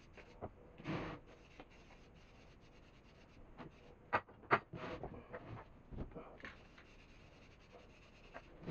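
Intermittent light rubbing and scratching from hand work on an old metal vise, with a few sharp taps, the loudest about four seconds in.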